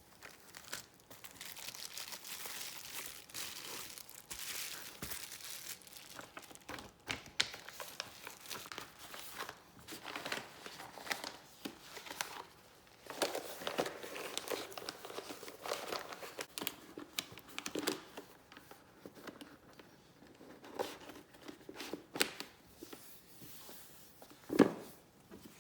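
Packaging being unwrapped from keyboard parts: plastic or foam wrap crinkling, crumpling and tearing on and off, with a few sharp knocks, the loudest near the end.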